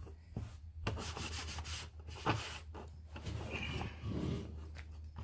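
Wet paper towel rubbing over an automatic chicken door and its control box, wiping off dirt in short, irregular strokes.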